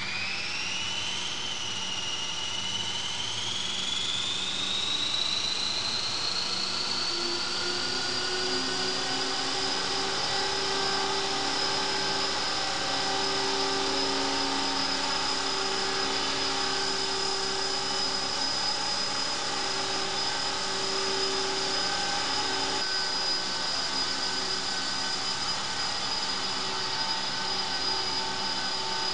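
Electric CopterX 450 Pro RC helicopter spooling up: the motor and drive whine climbs steeply in pitch at first, then levels into a steady high whine, with a lower hum joining after several seconds as it lifts off into a hover.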